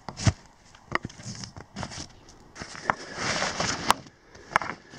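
A rope-tied canvas poncho bundle being untied and opened by hand: the heavy cloth and packed gear rustle, with several sharp clicks and knocks at irregular intervals.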